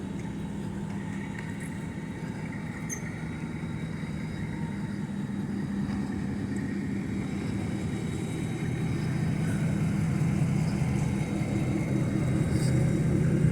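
Steady low rumble of a motor vehicle running, growing gradually louder.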